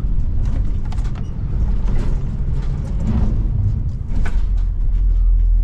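Low vehicle rumble with scattered creaks and clicks; the rumble gets louder about four seconds in.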